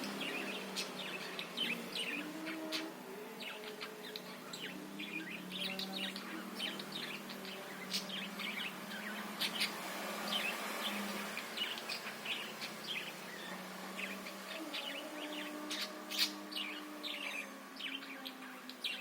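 Budgerigars chattering: a continuous run of quick, high chirps and warbles, over a steady low hum.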